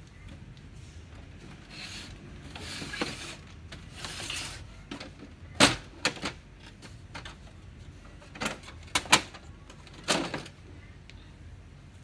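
Plastic scraping, clicks and knocks as the scanner unit and top cover of an HP Laser MFP 135 laser printer are lifted open and handled. There are soft scrapes about two and four seconds in, then a handful of sharp clicks between about five and ten seconds in.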